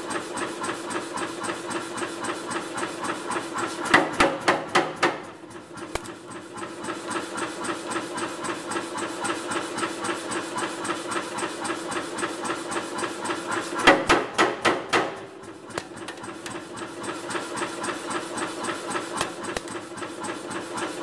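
Power hammer striking a red-hot steel bar held in a V-jaw tong jig, in two quick runs of blows: about four seconds in and again about fourteen seconds in. This is forging the jaws of blacksmith tongs. Between the runs the hammer's machinery runs steadily with a light regular pulse.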